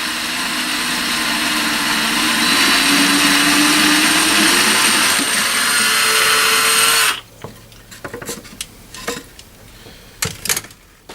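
Electric drill running steadily for about seven seconds while drilling a drawer front for knob fixings. Its motor pitch rises toward the end before it cuts off suddenly. A few light clicks and knocks follow.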